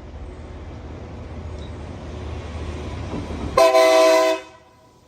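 Low, steady engine rumble, then a short, loud blast of a multi-chime locomotive horn, a chord of several notes that cuts off sharply.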